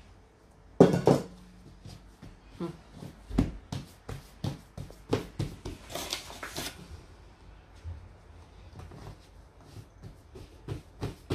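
A stainless-steel mixing bowl set down hard on the table about a second in, ringing briefly, then irregular soft taps and knocks of hands pressing and patting dough flat on a silicone baking mat. A short rustle comes about six seconds in.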